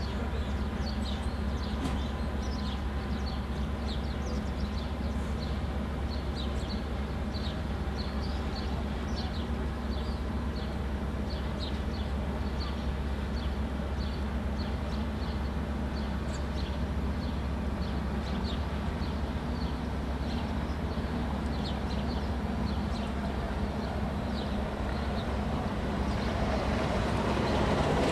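Costa Favolosa cruise ship passing close, giving a steady low drone from its machinery, with small birds chirping in short high notes throughout. A rushing noise swells in near the end.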